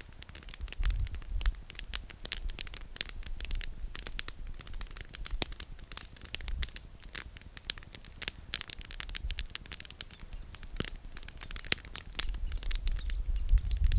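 Campfire burning, its firewood crackling and popping in quick irregular snaps, over a low rumble that grows louder near the end.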